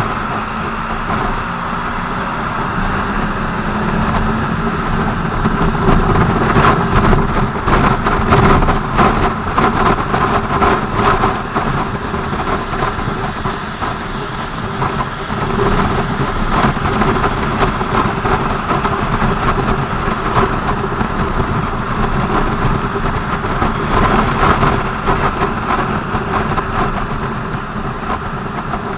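BMW R 1200 GS flat-twin motorcycle engine running while riding, under steady wind and road noise. It swells louder for several seconds near the start, then settles into an even drone.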